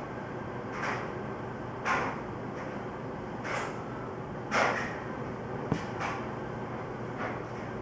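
Green iguana biting and tearing at lawn grass: short, crisp rustling crunches at irregular intervals of about a second, over a steady low hum.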